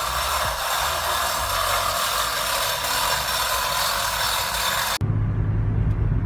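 A steady, even mechanical whirring noise that stops abruptly about five seconds in, replaced by a low steady hum.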